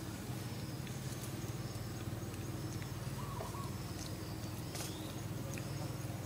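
Outdoor ambience: a steady low hum with scattered light clicks and ticks, and one short faint chirp about three seconds in.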